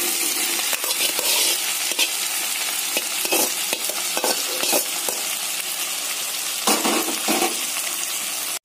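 Vegetables sizzling in hot oil in a kadai as sliced radish is added to frying onions and tomatoes, with a steady hiss and scattered knocks and clatter from the pan.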